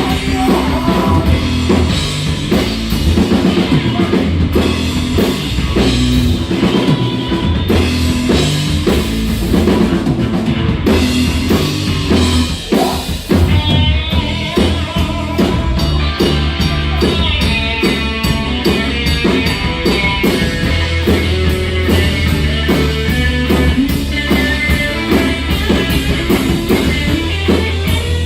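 Rock band playing with drum kit, bass and electric guitar.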